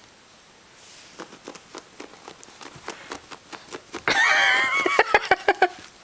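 A puppy scuffling with a plush toy close to the microphone: scattered sharp clicks, then about four seconds in a loud, wavering, voice-like cry, followed by a quick run of short pitched pulses.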